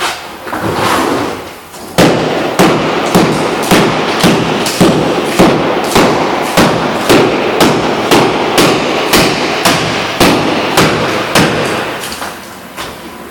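Hammer blows chipping wood out of a wall stud, a steady run of sharp knocks about two a second, tapering off near the end.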